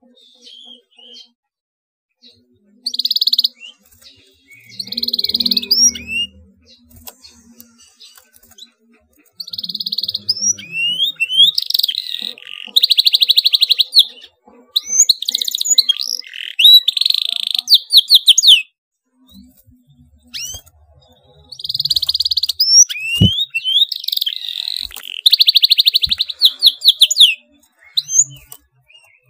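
Canary singing in an excited state, in bursts of fast, tight rolling trills with rising whistled notes, breaking off briefly and starting again several times. A single sharp click sounds about two-thirds through.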